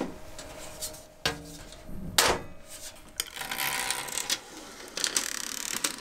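Hands tucking cables away inside a PC case: rubbing and rustling, with a few clicks and knocks, one sharp click about two seconds in.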